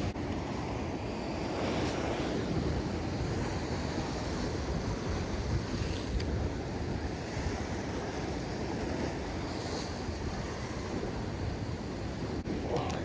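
Ocean surf washing and breaking against rocks: a steady rushing noise, with wind buffeting the microphone.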